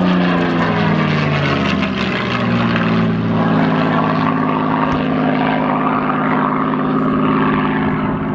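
Supermarine Spitfire's V12 piston engine and propeller in flight, passing overhead. The engine note falls in pitch over the first two seconds as it goes by, then settles into a steady drone as it flies away.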